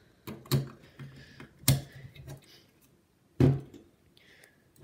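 Sharp knocks and clunks of hands working on a computer case, three loud ones a second or more apart with lighter clicks between.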